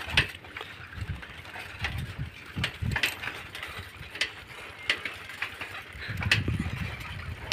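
Bicycle rattling over a rough dirt track: irregular clicks and knocks over a low rumble, the rumble growing louder near the end.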